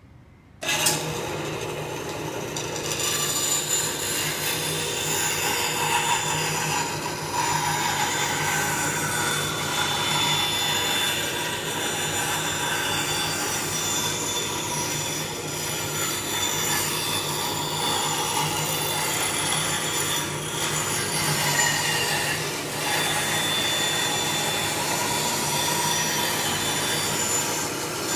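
Bandsaw switched on under a second in, then running steadily as its blade cuts a wooden workpiece into a circle while the piece turns on a pivot-pin jig.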